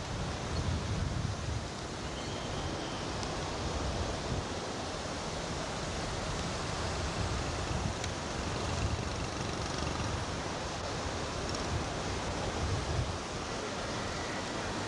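Steady rushing of surf and wind, with irregular low gusts of wind buffeting the camcorder microphone.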